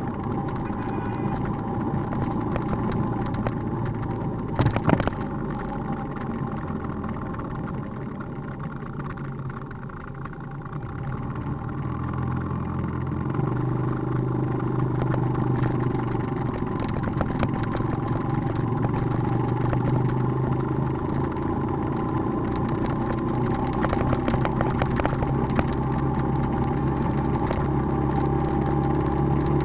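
Motorcycle engine running steadily under way, with road noise, heard from the moving bike. The engine grows louder from about twelve seconds in, and there is one brief knock about five seconds in.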